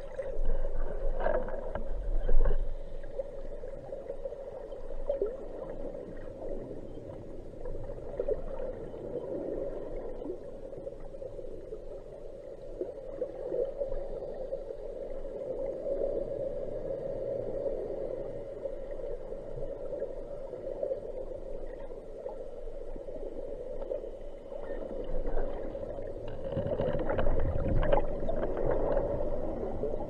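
Muffled underwater noise picked up by a camera in a waterproof housing as a diver swims: a steady hollow drone with irregular bumps and swishes from the diver's movement. It is louder in the first few seconds and again near the end.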